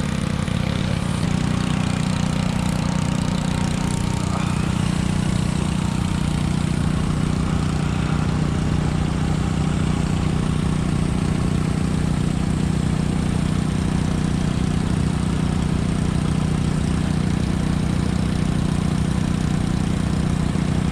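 Small engine of pressure-washing equipment running steadily at a constant speed, with an even hum.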